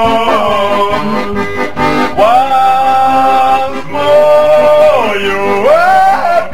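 Credits music: a melody of long held notes that slide smoothly up and down between pitches over a steady accompaniment.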